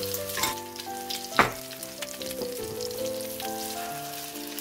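Egg-battered tofu frying in oil in a nonstick pan, a steady crackling sizzle. A single sharp knock comes about a second and a half in.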